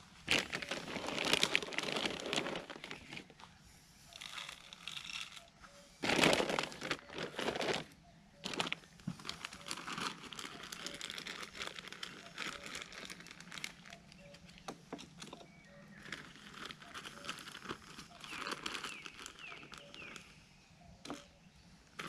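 Plastic bag crinkling and rustling in bursts as it is handled, loudest in the first few seconds and again around six seconds in, then lighter crinkling, with a sharp click near the end.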